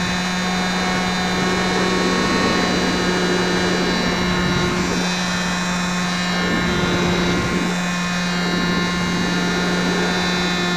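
RC model plane's motor and propeller running at a steady speed in flight, heard through a keychain camera taped to the airframe: one unchanging drone with a buzzy edge. A rush of air swells and fades about halfway through as the plane rolls.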